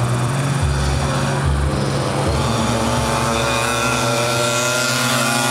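Small moped engines running during a race. One engine climbs in pitch through the second half as it revs and accelerates.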